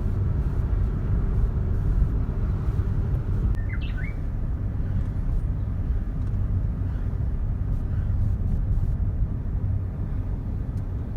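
A bird chirps a few short, quick notes about four seconds in, with fainter chirps now and then. Under it runs a loud, steady, low rumble that is the loudest thing throughout and cuts off abruptly at the end.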